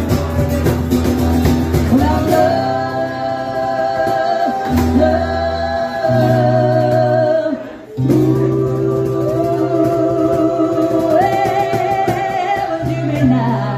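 Live acoustic band: acoustic guitars strumming under several voices singing long held harmony notes with vibrato, broken by a short pause a little before the middle.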